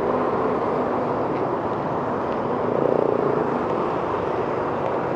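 Steady road traffic noise, swelling briefly about halfway through.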